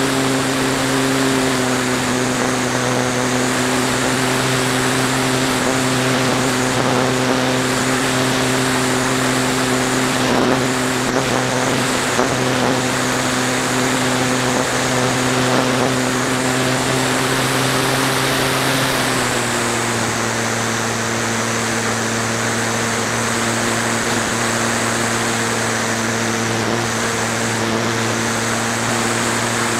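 Flyzone Calypso RC plane's electric motor and propeller heard from the onboard camera, running as a steady drone over wind rush. About two-thirds of the way through, the pitch steps down a little as the throttle is eased.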